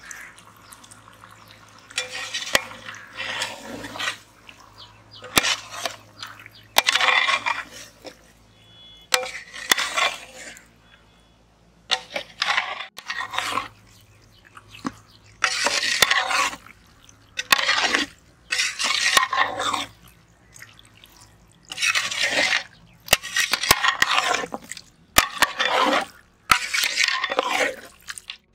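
Large aluminium pot of chicken parts being mixed into a thick spice masala with a long spoon, in repeated wet, scraping strokes with sharp knocks of the spoon against the pot.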